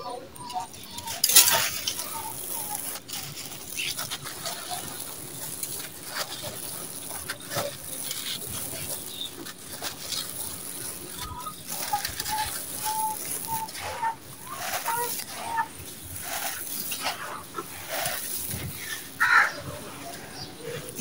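Dry gritty sand-cement and small white stones crunching and trickling through bare hands in irregular crunches and pours, the loudest crunch about a second in. Birds call in the background, in a short row of notes around the middle.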